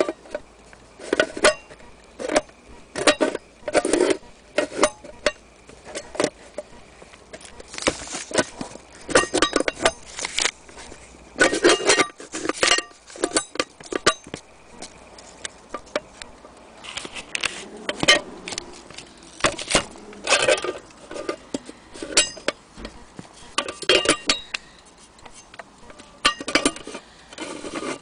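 Metal case of an antique pigeon-racing timing clock being handled and turned by hand: irregular metallic clinks and knocks, some in quick clusters.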